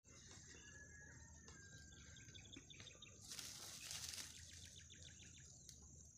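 Faint outdoor ambience: a steady high-pitched insect drone with birds chirping in short rapid trills. A brief hiss of noise rises and falls about three seconds in.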